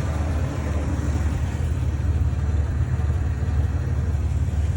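Ford F-150 engine running with a steady low rumble that sounds bad to the owner after a new harmonic balancer and distributor were fitted. The title puts the trouble down to ignition timing.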